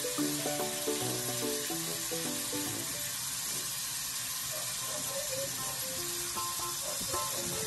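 Tap water running steadily into a sink, with light background music that fades out a few seconds in.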